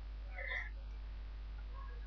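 A person's short, faint voiced catch of breath about half a second in, like the first 'ah' of a sneeze building up.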